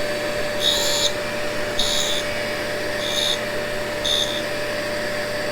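Tool and cutter grinder running with a steady motor whine, its coarse wheel grinding a cutter bit in short, high-pitched passes about once a second.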